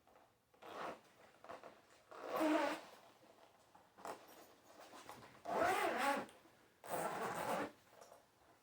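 Zipper of a guitar gig bag being pulled open in about four rasping strokes, the longest about two and a half and six seconds in.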